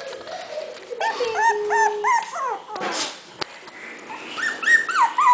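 Four-week-old Havanese puppies yipping and whimpering in short, high-pitched calls, in two quick runs with a brief scratchy noise between them.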